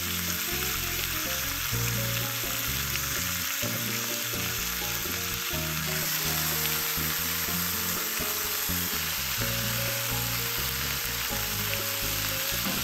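Sauce-coated chicken leg quarters sizzling steadily on a medium-hot cast-iron grill pan.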